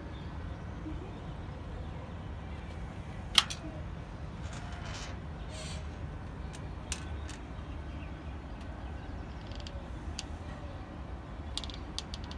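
Steady low city background hum with a few scattered clicks; the loudest, a single sharp click, comes about three and a half seconds in.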